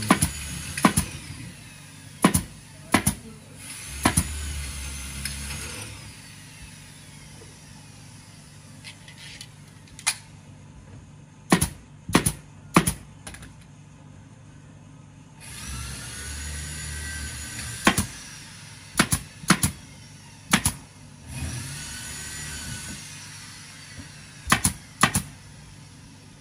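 Pneumatic upholstery staple gun stapling fabric onto a cushion, firing sharp single shots, often two or three in quick succession, with pauses between. Several bursts of compressed-air hiss lasting a second or two come between the shots.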